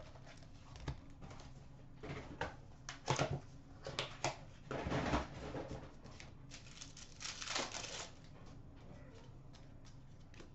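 Hockey card packs and their cardboard hobby box being handled: scattered taps, slides and foil-wrapper crinkles, loudest about three to five seconds in and again about seven and a half seconds in, with small clicks after.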